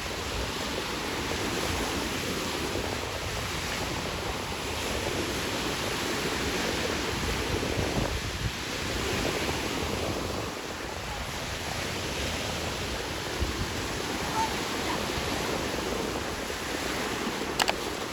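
Sea surf washing onto a sandy beach in a steady rush that swells and eases every few seconds, with some wind on the microphone. A sharp click near the end.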